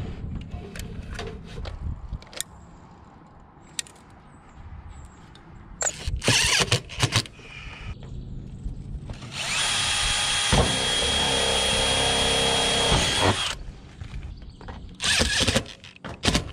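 Cordless drill driving screws through a sheet-metal ridge cap on a standing seam metal roof. It runs in short bursts about six seconds in and again near the end, and once steadily with a high whine for about four seconds in the middle.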